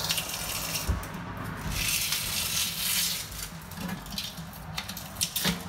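Black plastic protective strip being peeled and pulled out from around a stainless steel sink, crinkling and rustling in two long stretches, then a few short crackles near the end.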